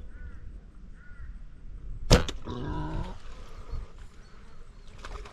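A compound bow is shot about two seconds in: one sharp snap of the string and the arrow's release. It is followed at once by a brief wavering cry, under a second long. Faint bird chirps come before the shot.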